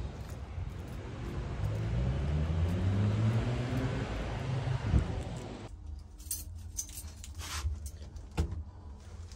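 A motor vehicle's engine rising in pitch as it accelerates over a low rumble, with a knock. Then the sound changes abruptly to a quieter low rumble with scattered clicks and rattles.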